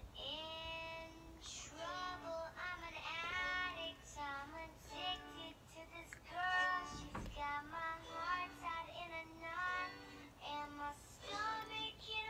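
A song with a high-pitched singing voice, played back as the audio track a TikTok is lip-synced to, with little backing heard under the voice.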